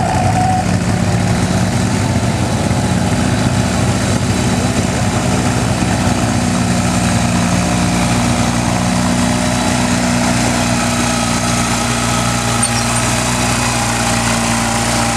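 Small garden tractor engine running steadily and loudly under load while it pulls a weight sled down a dirt track.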